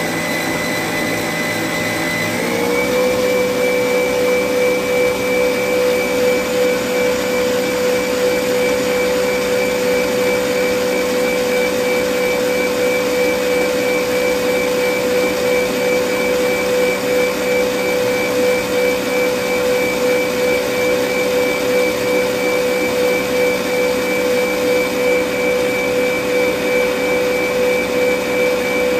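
Electric stand mixer motor running steadily with a wire whisk beating egg yolks, sugar and oil in a stainless steel bowl. About two and a half seconds in, its whine steps up in pitch and gets a little louder, then holds steady.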